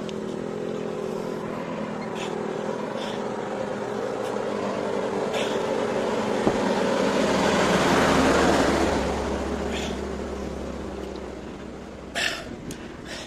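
A heavy truck's engine and tyres growing louder as it approaches and passes close by, loudest about eight seconds in with a deep rumble, then fading away. A few sharp clicks near the end.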